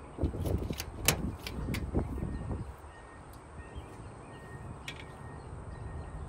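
A big catfish flopping on a pickup's tailgate while being held down for unhooking: a quick run of knocks and thuds in the first two seconds or so, then quieter.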